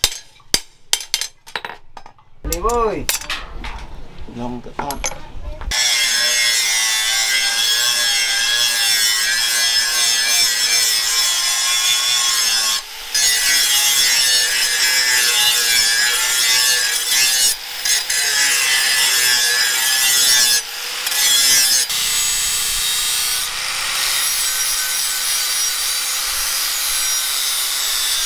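A few hammer blows ring on the steel cleaver blade. Then an electric angle grinder runs up and grinds the leaf-spring steel blade steadily, with a few short breaks as the disc comes off the metal.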